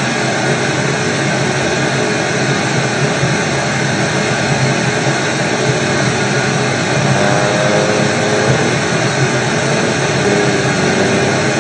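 Loud, steady white-noise static, the hiss of a receiver that has lost its signal. Faint wavering tones surface in the hiss about seven seconds in and again near the end.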